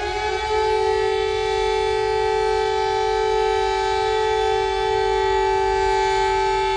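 Civil defense warning siren finishing its wind-up and holding a steady two-tone wail, cut off abruptly near the end.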